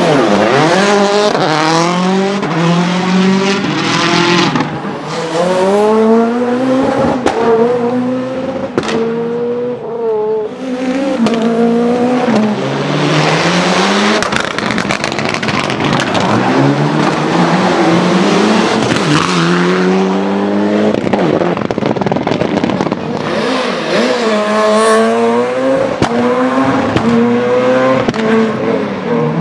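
Rally car engines revving hard, each rising in pitch and dropping back at every gear change, again and again as one car after another drives past.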